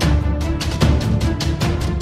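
Outro theme music with a steady, quick beat over a sustained bass.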